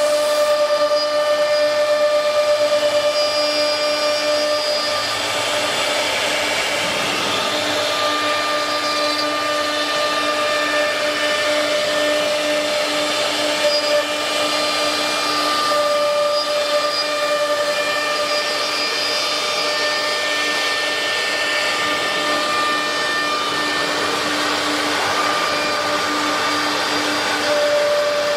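CNC router spindle whining steadily while its bit cuts through a wood panel, with the rushing noise of the cut under it. There is a small jump in the sound about halfway through.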